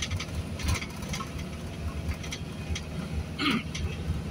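Engine and road noise heard inside the cab of a moving vehicle: a steady low rumble with scattered light rattles, and one brief higher-pitched sound a little after three seconds in.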